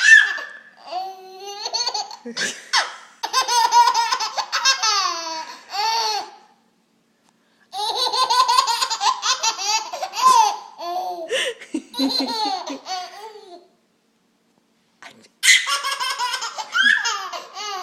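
A baby laughing hard in three long bouts of high-pitched, rapid giggles, with short silent pauses between them. The laughter is set off by someone's sneezes.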